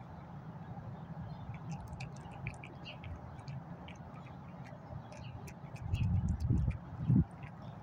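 A cat eating wet pâté from a dish: a run of small wet clicks and smacks from chewing and lapping. Near the end come two louder low rumbling bumps.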